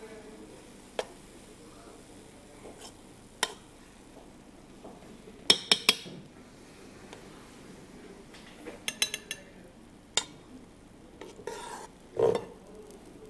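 Utensil stirring and scraping through thick cooked rice and milk in a steel pot while cardamom pods are fished out, with sharp metal clinks against the pot every few seconds. Two quick runs of ringing taps come about halfway through and again around nine seconds, and a heavier knock near the end.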